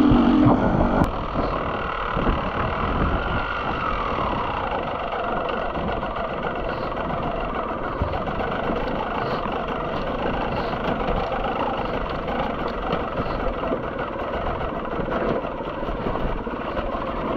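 Beta enduro motorcycle engine, louder for the first half-second, then running steadily at modest revs as the bike picks its way over a wet, rocky trail.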